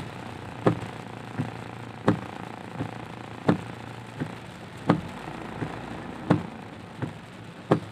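Car windscreen wipers sweeping a wet windscreen, with a sharp knock at each end of the stroke about every 0.7 seconds, every other knock louder. Under it runs a steady low engine and road hum inside the cabin.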